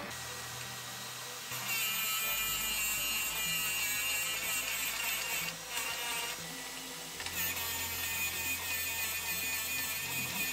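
FABTEC MR-13A drill-bit sharpener running, its motor humming steadily, as a broken 11 mm twist drill held in the collet chuck is ground against the wheel in the point-sharpening port. The grinding starts about a second and a half in and comes in three stretches, with short breaks around six and seven seconds, as the chuck is turned in the port.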